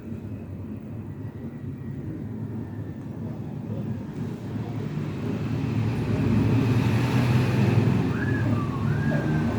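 Low background rumble without speech that swells about five seconds in, with a few faint short whistle-like glides near the end.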